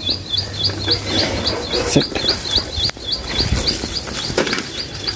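Old bicycle rattling and knocking as it rides over a rough, wet grassy path, with sharp knocks near 2, 3 and 4.5 seconds in. A rapid, regular high chirping, about five a second, runs throughout.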